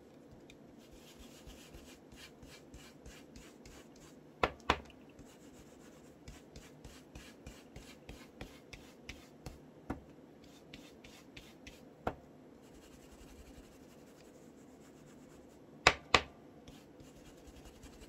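Round foam ink-blending tool dabbing ink through a plastic stencil onto paper: a run of soft, quick taps, about three a second, with a few louder sharp clicks, two of them close together near the end.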